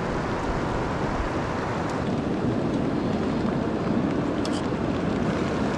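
Steady rushing of a cascading river mixed with heavy rain falling.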